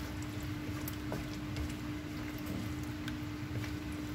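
Thick spinach gravy with paneer cubes being stirred with a wooden spatula in a nonstick pan, with a couple of faint clicks of the spatula. A steady hum runs underneath.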